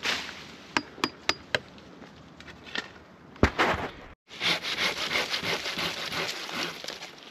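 Wood cracking and knocking during tree pruning: a few sharp snaps, then a heavy thud about three and a half seconds in, followed by a run of dense crackling and rustling of branches.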